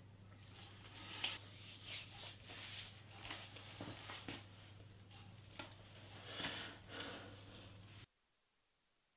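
Faint rustling and light clicking handling noises over a steady low hum, which cut off to near silence about eight seconds in.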